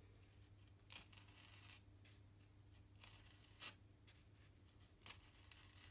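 Faint scratching of a scalpel blade scoring lines into a block of Bastion XPF foam: about five short strokes, over a steady low hum.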